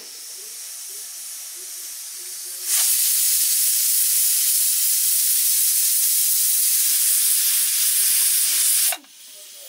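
Pressure cooker venting steam under its weight valve: a softer hiss builds, then about three seconds in a loud, steady high hiss of escaping steam starts suddenly and lasts about six seconds before cutting off sharply. The weight lifting and venting shows the cooker has come up to pressure.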